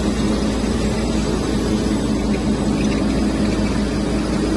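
FS SHARK N1100 corrugated-box inspection machine running: a steady mechanical drone from its belt conveyors and drive, with a low steady hum underneath.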